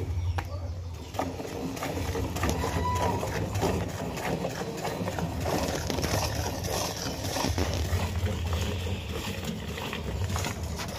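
Hand-milking a cow: repeated squirts of milk from the teats streaming into a steel milk pail that already holds milk, a quick, irregular series of short spurts.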